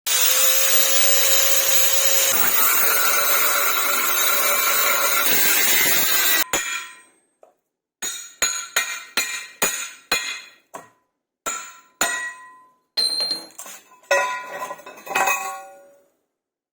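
A power tool runs loud and steady for about six seconds and then stops suddenly. About a dozen sharp hammer blows on metal follow, each ringing briefly.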